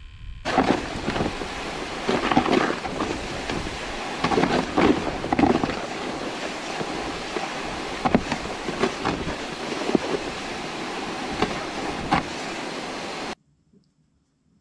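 Plastic ice-fishing sled dragged across snow-covered ice: a steady scraping rush with frequent irregular bumps and knocks as it bounces along, cutting off suddenly near the end.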